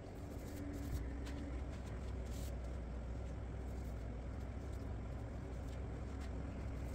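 Steady low hum throughout, with a few light clicks and taps of small metal parts being handled by hand and a brief hiss about two and a half seconds in.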